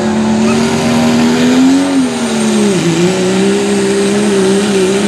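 Turbocharged diesel pickup engine running hard under load as the truck pulls the sled. The engine note climbs a little, drops about three seconds in, and holds lower with a slight waver, with a thin high whistle over it.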